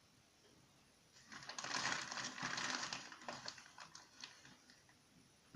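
A spoon scooping flour and starch and tipping it into a bowl: a soft rustling scrape starting about a second in, then a few light clicks of the spoon against the container.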